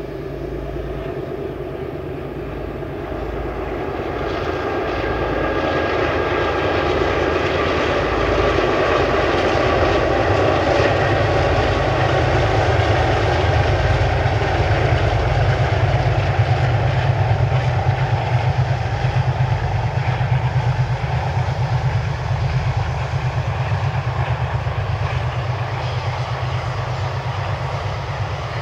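Diesel freight locomotives working a long train of hopper wagons past, engines running under load with a deep pulsing rumble. It grows louder a few seconds in, holds through the middle and eases slightly near the end as the wagons roll by.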